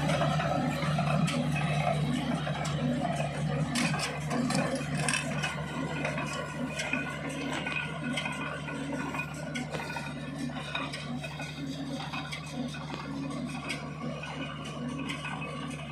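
Welger AP 12 K baler running behind a Hanomag tractor: a steady engine hum under a regular pulsing beat and continuous metallic clattering and rattling from the baler's mechanism.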